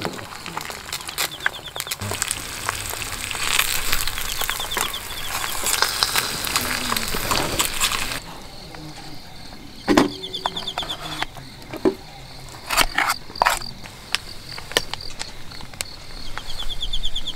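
Eggs sizzling and crackling in a small metal pan on a cartridge gas stove, stopping abruptly about eight seconds in. After that come a few sharp clinks of metal tableware, with crickets trilling faintly throughout.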